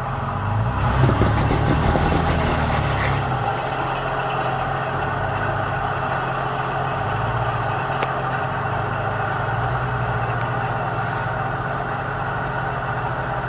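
Toyota FJ Cruiser's V6 engine running at low revs as the truck crawls up over rocks. About a second in, a louder rushing noise rises over the engine for a couple of seconds.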